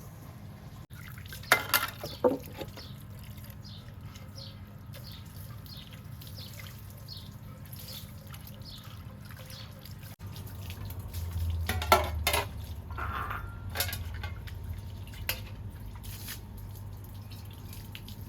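Water dripping and splashing, with a few louder clatters about two seconds in and again around twelve to fourteen seconds in, over a steady low hum.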